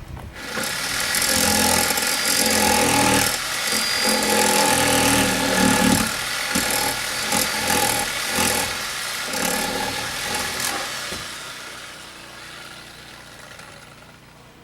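Handheld power tool running at speed and cutting away material, its loudness rising and falling with the load. After about eleven seconds it winds down and fades away.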